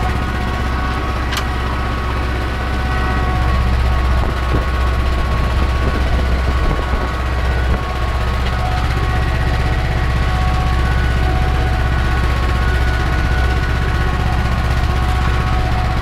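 Ursus C-330 tractor's two-cylinder diesel engine running steadily under load while pulling a disc harrow, heard from inside the cab.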